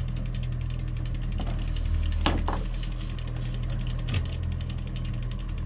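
Fishing reel being cranked, its gears and ratchet clicking rapidly and continuously, as a hooked fish is reeled in. Under it runs the steady low drone of the boat's engine.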